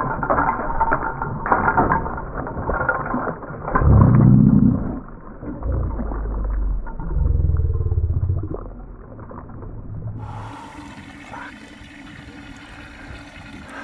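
A big barramundi thrashing and splashing at the surface beside a small boat, with heavy low thumps about four seconds in. About ten seconds in it dies down to a quieter steady hiss of water and wind.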